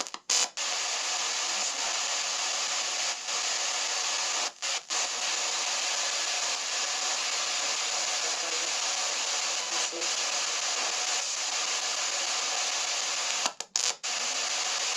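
S-Box ghost box sweeping through radio frequencies, giving a steady hiss of radio static that cuts out briefly three times.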